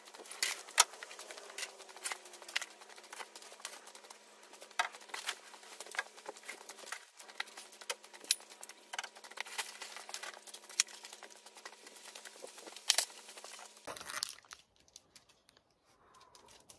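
Camping and hunting gear being handled and packed: bags and fabric rustling and crinkling, with many scattered clicks and knocks. It goes much quieter about three seconds before the end.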